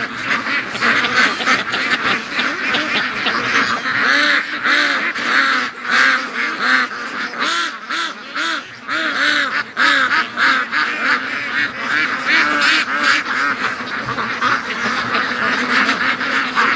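Large flock of domestic ducks, Rouen hens among them, quacking without a break, many calls overlapping into a dense chorus.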